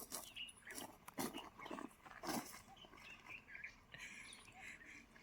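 Indian spectacled cobra hissing in several short, breathy bursts.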